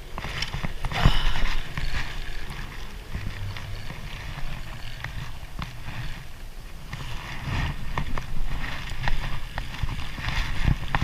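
A spinning reel being cranked against a hooked fish, giving scattered short clicks, mixed with a rain jacket rustling and knocks and rumble from handling close to the microphone.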